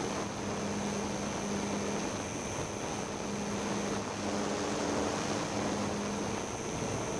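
Air rushing past the onboard camera of a model aircraft in flight, with a low propeller buzz that breaks off and comes back several times over a thin, steady high whine.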